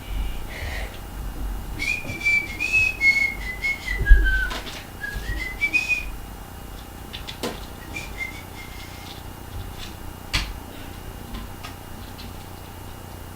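A person whistling a short wandering tune that dips lower in the middle and rises again, with a brief snatch more later. A few sharp clicks and knocks of handling come after it.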